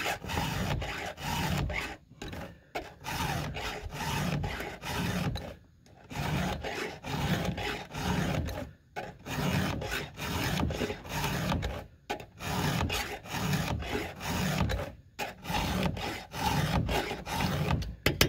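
A 7/32-inch round chainsaw file rasping across the cutting teeth of a Husqvarna 572 XP's chain. It goes in steady push strokes, a few on each tooth, with a short pause about every three seconds as the file moves to the next tooth.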